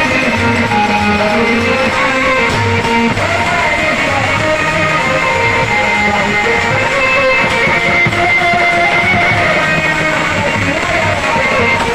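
Live instrumental music from a Bhojpuri dugola folk band: held melodic notes over a repeating drum beat.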